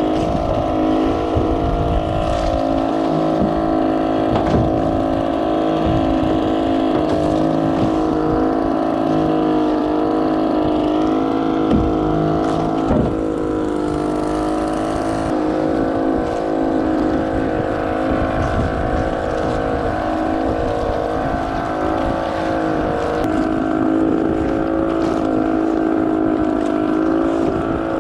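A small engine aboard a wooden outrigger fishing boat running steadily at an even speed, with irregular low buffeting underneath.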